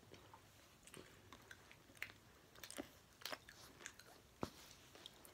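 Faint chewing of a Snickers bar topped with Skittles: soft, irregular mouth clicks and small crunches.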